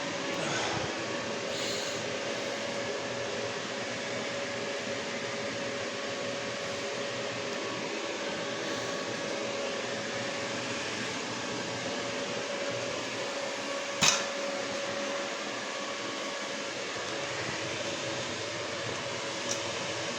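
Steady whir of an electric blower motor, such as a fan or shop vac, with a constant hum. A single sharp click about fourteen seconds in.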